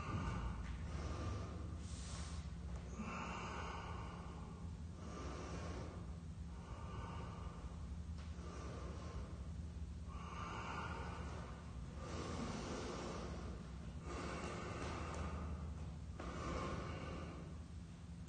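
A man breathing deeply and audibly while holding a stretch, a slow breath in or out every second or two.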